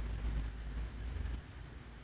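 A deep, low rumble fading away, mostly died out about a second and a half in.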